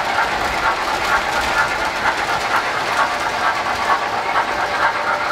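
O gauge three-rail model trains running steadily on the layout's track: a continuous mechanical whir of wheels and motors, with irregular light ticking.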